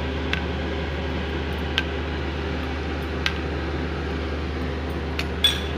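A steel spoon scooping whisked yogurt from a glass bowl into the curry, giving a few sharp clinks spaced over the seconds. A steady mechanical hum runs underneath.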